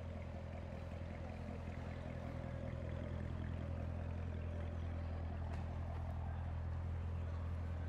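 A car engine idling steadily with a low, even rumble that gets a little louder after about two seconds.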